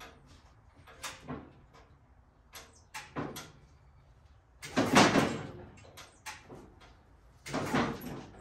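Big Joe electric lift being moved on the driveway: a run of clicks and clunks, then two louder, longer rushing rumbles about five and eight seconds in.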